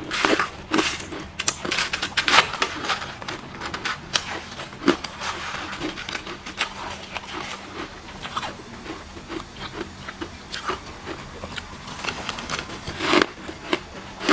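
Ice being bitten and chewed close to the microphone: an irregular, rapid run of sharp crunches and crackles, with a few louder bites among them.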